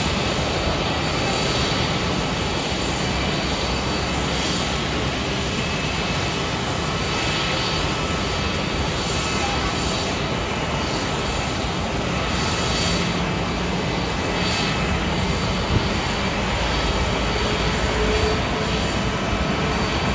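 Jet airliner engines running on the apron: a steady, even rush with a faint high whine, holding level without rising or falling.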